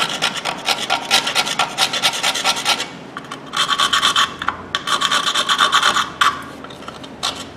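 Hand scraping of rust off the steel shoe mounting pads of a brake backing plate: quick back-and-forth rasping strokes. There is a short lull about three seconds in, and the scraping takes on a shrill, squealing edge through the middle stretch.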